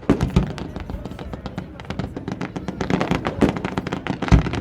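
Fireworks bursting in a rapid series of bangs and crackles, the loudest about a second from the end, over music played for the show.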